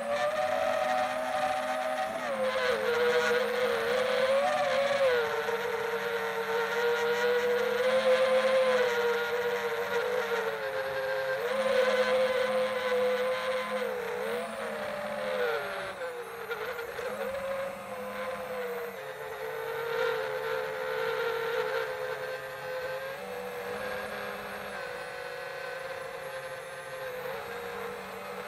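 Quadcopter's electric motors and propellers whining as it flies, the pitch rising and falling continuously with the throttle, over a hiss of rushing air.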